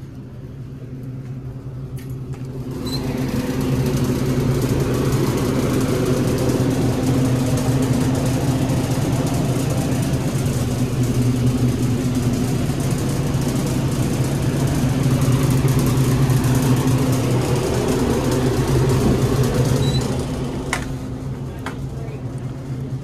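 Steady hum and rush of a walk-in beer cooler's refrigeration fans and compressor. It comes up about three seconds in and fades out near the end, with a couple of faint clicks around it.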